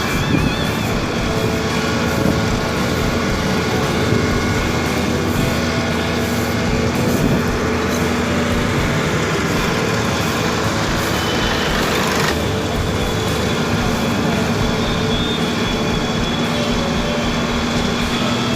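Heavy road-construction machinery running with a steady engine drone and a held low hum.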